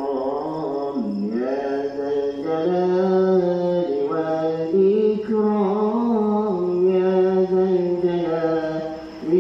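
A man chanting zikir munajat, a Malay Islamic devotional supplication, in long, drawn-out phrases. His held notes slide and waver between pitches.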